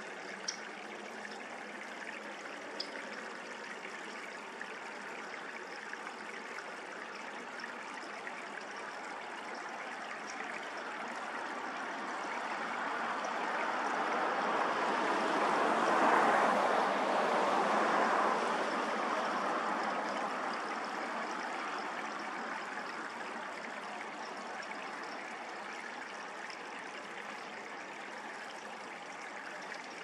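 Steady rushing of flowing water. A broader whoosh swells slowly to a peak in the middle and fades away again over about ten seconds.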